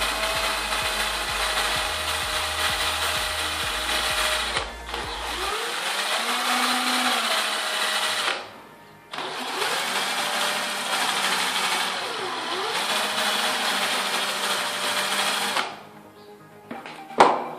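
Cordless drill motor spinning a sandpaper sleeve on its chuck while a kitchen knife edge is ground against it: a motor whine over a grinding hiss, its pitch rising and falling as the trigger is squeezed and eased, with two brief stops. The drill stops near the end and a sharp knock follows.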